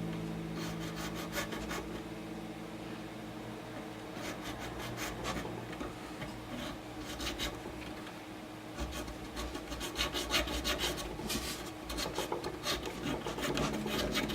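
A hand file scraping across a guitar nut in short repeated strokes, shaping the nut or cutting its string slots. The strokes come sparser at first and quicker and louder from about nine seconds in.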